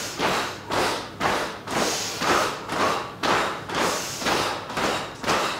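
A group marching in place, feet thumping on the floor in a steady rhythm of about two to three steps a second, with short, forced breaths in time with the steps.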